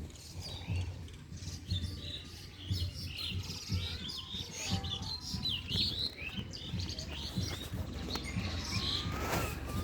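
Many small birds chirping in quick, overlapping short calls, over a low, uneven rumble.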